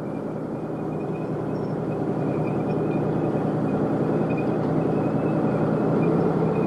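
Tank engine running steadily and growing slowly louder, with a faint thin high whine above it.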